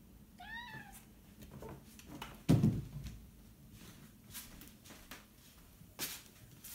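A domestic cat meows once, a short call that rises and falls in pitch. About two seconds later comes a heavy thump, the loudest sound, then scattered light taps and clicks.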